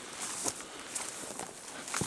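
Footsteps and rustling on a dry trail, with irregular clicks over a steady hiss.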